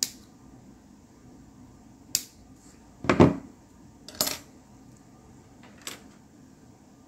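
Plastic model-kit parts and small hobby tools being handled and set down on a workbench: a handful of light clicks and clacks, the loudest a double knock about three seconds in.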